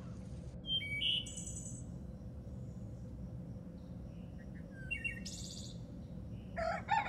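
Small birds give short high chirps a couple of times over steady low background noise; near the end a rooster starts to crow.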